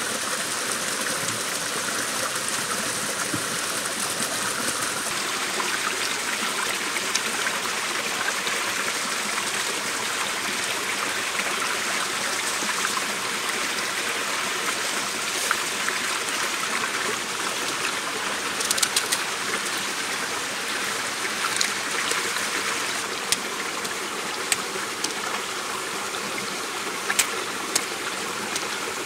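Steady rush of a forest stream and small waterfall. In the second half, scattered sharp crackles from the wood fire under a steaming cooking pot.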